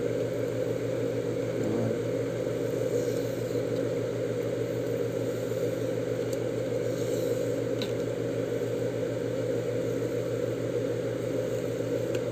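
A steady low mechanical hum, like a fan or small motor running. Over it come a few faint ticks as an adhesive polarizer film is slowly peeled off a gauge's LCD.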